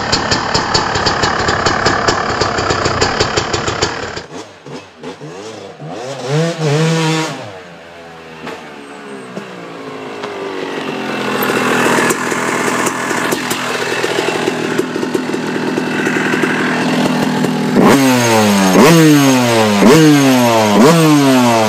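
Yamaha YZ250 two-stroke single-cylinder dirt bike engine in several cuts. It runs steadily for about four seconds, then is revved up and down. It then builds in pitch and loudness as the bike comes closer, and near the end climbs in a quick series of rising revs that each drop back.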